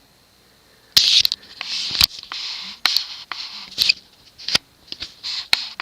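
Scraping and rubbing broken by sharp clicks about once a second, as a ceiling-fan blade is handled.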